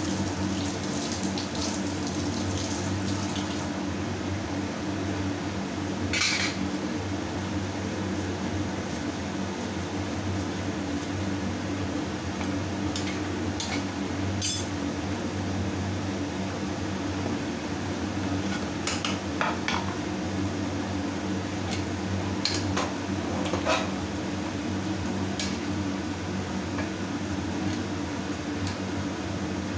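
Kitchen work: scattered clinks and knocks of steel utensils and a knife against a wooden chopping board and a pressure cooker pot, over a steady low hum.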